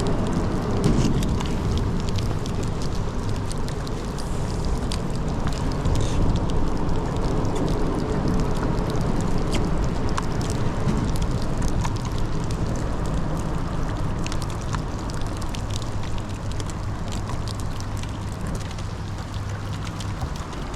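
Rain pattering in many sharp scattered ticks on the boat and rain gear, over a steady low hum from the trolling motor holding the boat in spot-lock.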